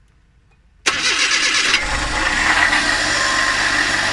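Suzuki K6A 660 cc three-cylinder engine cranked by the starter about a second in, catching just under a second later and running on with a steady high-pitched whine and a grating, scraping noise, fairly loud. The owner suspects a bearing or the water pump on the belt-driven accessories.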